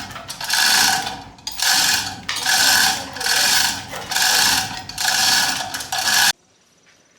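A hand tool worked in regular strokes on metal, about one stroke a second, each stroke a short burst of noise. The strokes cut off suddenly near the end.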